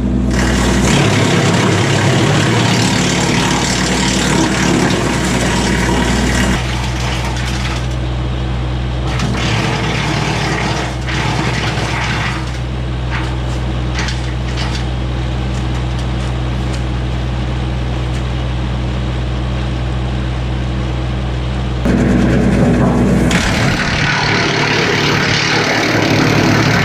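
Kubota LX2610 compact tractor's diesel engine running steadily. It is louder for the first six seconds, drops to a lower, steadier level, then swells briefly again about 22 seconds in.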